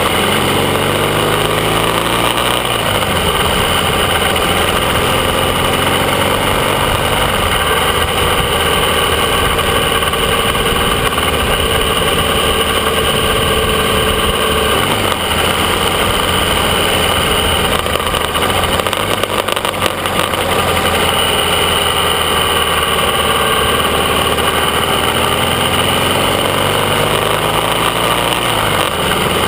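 AJS 650 CSR parallel-twin motorcycle engine running under way, with wind rushing past. The engine note climbs as it accelerates in the first few seconds and again near the end.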